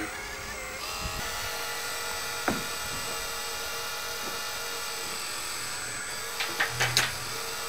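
Hydraulic pump of an RC4WD Earth Digger 4200XL model excavator, driven by a brushless electric motor, whining steadily as the boom and bucket move, with a few sharp clicks about two and a half seconds in and again near the end.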